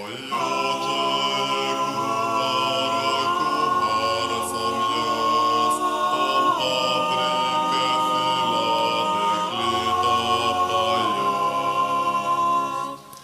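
A cappella vocal octet holding long, wordless sustained chords, with the harmony shifting about six and a half seconds in and again about three seconds later. The singing breaks off just before the end.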